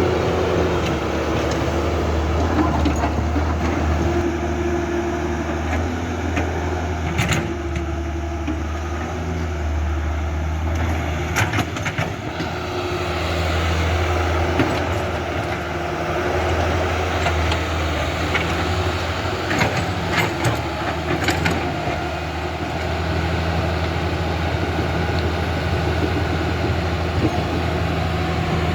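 Huina RC excavator running with a steady low hum, with a few short sharp clicks and knocks about a quarter of the way in, near the middle, and again about two-thirds of the way through.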